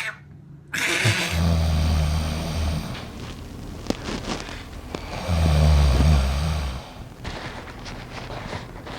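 Loud snoring: two long, low-pitched snores, each about a second and a half, about four seconds apart.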